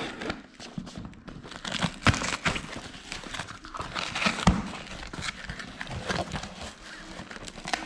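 Cardboard box being opened by hand: the packing tape tears free and the cardboard flaps rustle and crinkle as they are pulled back, with irregular crackles throughout and louder tearing bursts around two seconds in and again near four seconds.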